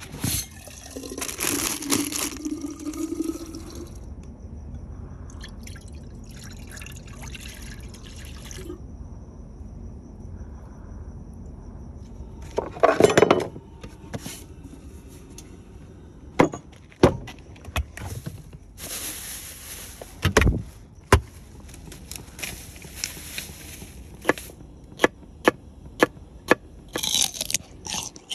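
Camp-kitchen food prep: a wooden cutting board, containers and food being handled, with scattered knocks, clicks and rustling. A loud rustling burst comes about halfway through, and a run of sharp knocks about one a second near the end.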